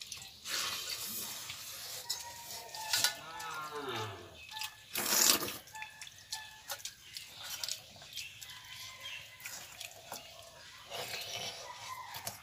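Scattered light clicks and clinks of a hand eating from steel and brass bowls. About three seconds in there is one drawn-out animal call that falls in pitch, and just after five seconds a short, loud burst of noise.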